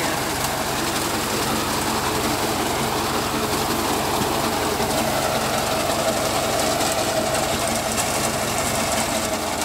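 Tractor-mounted reaper at work: the tractor engine running steadily under a fast, even mechanical clatter from the machine.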